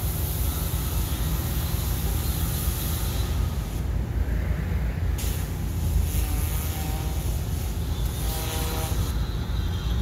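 Pressure washer working, a steady low rumble under a high hiss of spray. The hiss cuts out for about a second and a half about four seconds in, and again near the end.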